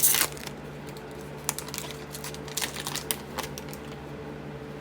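A trading-card pack wrapper torn open with a short crackle, then scattered light clicks and rustles of the cards being handled and flicked through.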